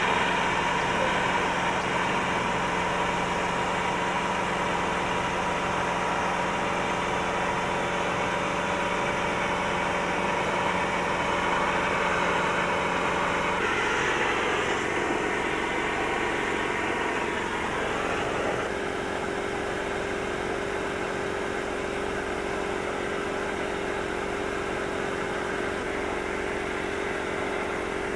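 Sandblasting: an air compressor's motor running steadily under the hiss of a sandblasting gun stripping old paint. The motor's tone changes about halfway through and again a few seconds later.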